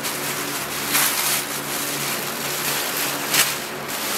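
Tissue paper rustling and crinkling as a garment is unwrapped by hand, with louder crackles about a second in and again near the end, over a steady low hum.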